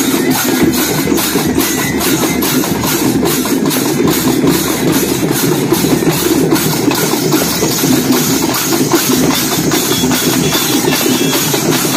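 A street drum band playing a fast, steady beat, with sharp percussive strokes about four times a second over a dense drum rumble.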